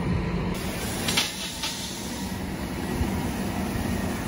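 Heavy diesel garbage truck running with a steady low rumble, and a short hiss about a second in.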